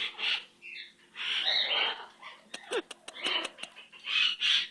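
Pet parrot making a run of harsh, raspy bursts, about five in a row: an upset, defensive reaction to the kissy sounds made at it.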